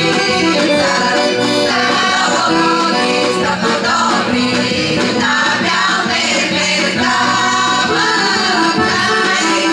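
Women's folk choir singing a Bulgarian folk song together, accompanied by an accordion.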